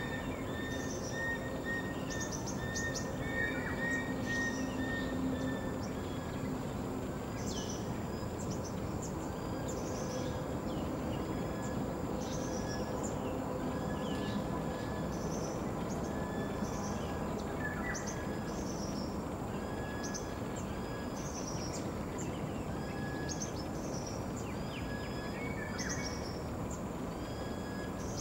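Background birdsong: short, high chirps repeating every second or two over a steady outdoor hiss, with faint held whistle-like notes lower down.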